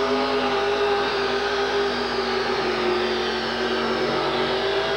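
1969 GMC four-wheel-drive pulling truck's engine running at high revs under full load during a pull, a steady drone that sags slightly in pitch midway before picking back up.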